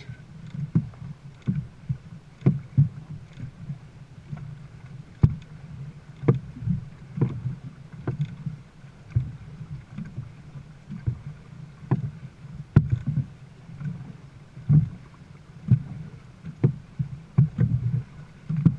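Dragon boat being paddled: sharp knocks from the paddle strokes about once a second, over a steady low rumble of water against the hull.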